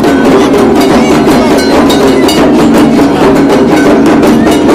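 Several dhak drums beaten with sticks in a fast, loud, driving rhythm, the festival drumming for the dance.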